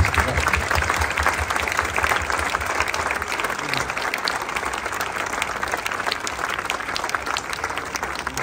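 Crowd applauding: a dense, even patter of many hands clapping that gradually fades over the last few seconds.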